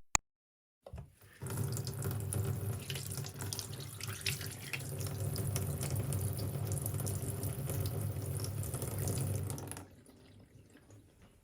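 Water running from a tap into a sink, starting about a second in and shutting off sharply near the end.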